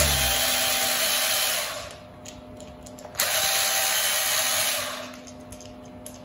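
Cordless drill-driver whirring in two runs of about two seconds each, with a pause between, as it works the screws of a plastic RC truck differential housing.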